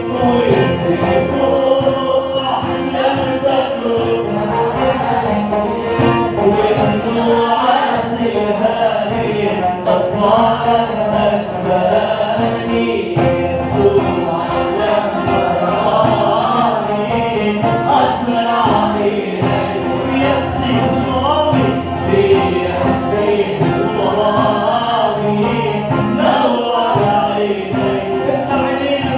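Music: an Arabic Christian hymn, with voices singing in chorus over instrumental accompaniment.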